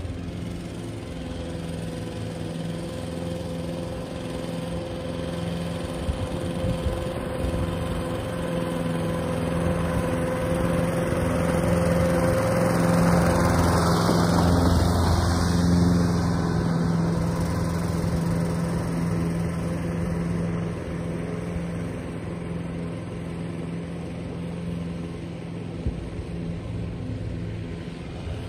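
Toro ProStripe 560 walk-behind lawn mower's engine running steadily at a constant speed while it cuts grass. It grows louder as the mower passes close about halfway through, then fades as it moves away.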